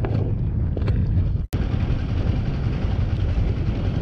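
Motorcycle engine running with wind rushing on the microphone; the sound drops out for an instant about one and a half seconds in.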